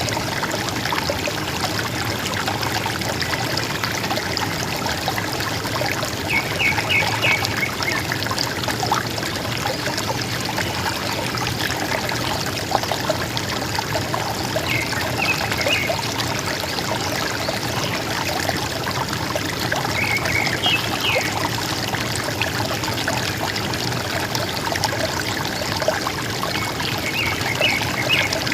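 River water gurgling and trickling steadily, with forest birds giving short bursts of quick chirps about four times.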